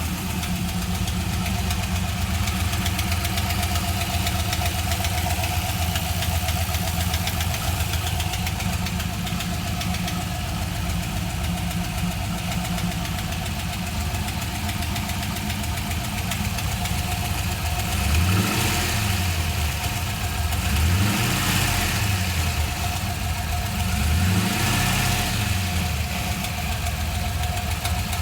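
GM LS1 5.7-litre V8 idling with a clacking, ticking noise, revved up and let fall back to idle three times in the second half.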